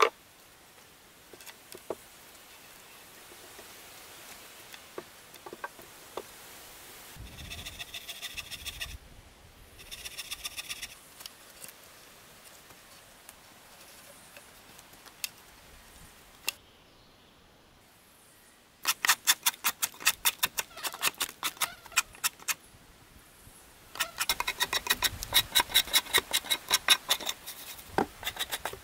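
Rapid, rhythmic scraping strokes of a scobel (a curved two-handled drawknife) shaving bark from a wooden pole, about five strokes a second, in two long runs in the second half. Earlier come two short whirring runs of a cordless drill and a few scattered knocks of wood.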